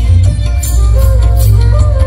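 Kunitha bhajane devotional dance-bhajan music: a singing voice carrying a gliding melody over a heavy bass beat, with rhythmic metallic percussion strikes.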